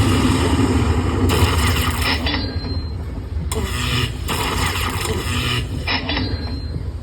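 Lightning Link slot machine spinning its reels: loud electronic spin sound effects that change character about every two seconds.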